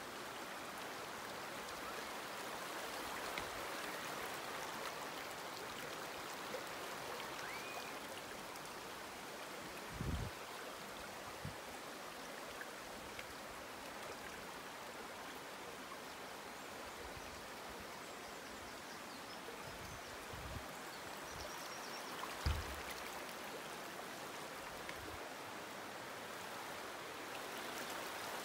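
Shallow, rocky river running over boulders: a steady rush of water. A few short low thumps break through it, the loudest about a third and again about three quarters of the way in.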